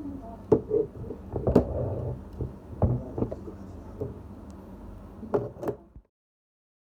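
Scattered knocks and clatters over a low room hum, then the sound cuts off abruptly about six seconds in.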